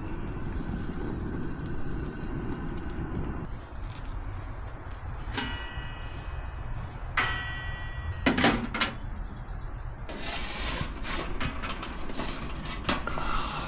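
A few sharp metallic clanks with a short ring, about five, seven and eight seconds in: a metal pizza peel knocking against a stainless-steel pizza oven and its door. A steady high-pitched insect drone runs underneath.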